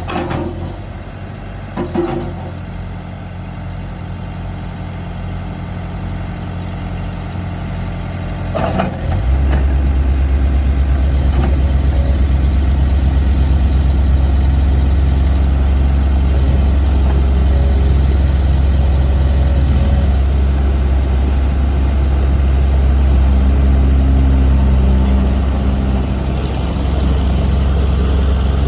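Case 580M Series 3 loader backhoe's diesel engine running, with a few sharp knocks, then stepping up to a louder, deeper running about nine seconds in that holds steady after.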